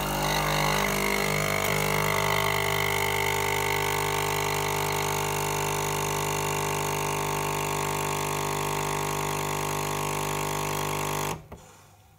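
Nespresso Lattissima Touch capsule machine's pump buzzing steadily as it brews espresso into a glass of frothed milk, rougher for the first couple of seconds. It cuts off suddenly near the end as the brew cycle finishes.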